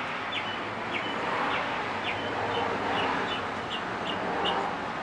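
A small bird chirping over and over, short high chirps about three a second that stop near the end, over steady background noise.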